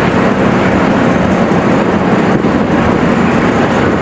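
Diesel engine of a large hydraulic mining excavator running steadily while its bucket digs into rock.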